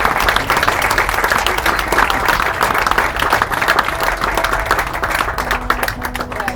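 Audience applauding and clapping after a song at a live gig, the applause thinning out near the end.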